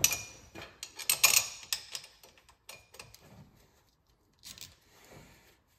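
Metal bolts being picked up and handled by hand, giving small sharp clicks and rattles: a cluster of them in the first second and a half, then fainter scattered clicks.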